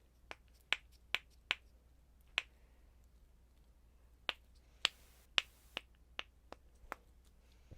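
Snapper fidget pen being clicked and snapped in the hand: about a dozen sharp snaps at uneven intervals, with a pause of about two seconds in the middle.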